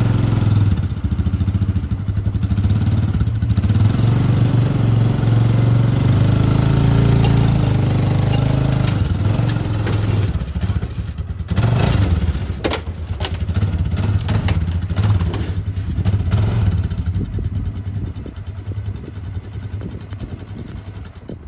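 Polaris 500 4x4 ATV engine running under throttle as the quad climbs aluminium loading ramps into a pickup bed, with a few sharp clanks from the ramps around the middle. The engine eases off and gets quieter near the end.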